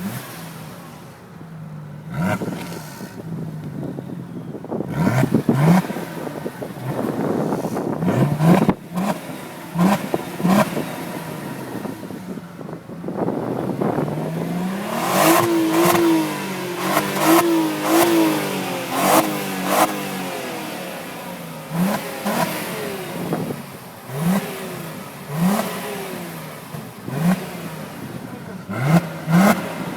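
Audi S4 B5's 2.7-litre twin-turbo V6, breathing through an aftermarket exhaust, revved again and again in short blips that rise in pitch, with a longer spell of held revs around the middle. Short bursts of hiss come between the blips, fitting the fitted blow-off valve venting as the throttle shuts.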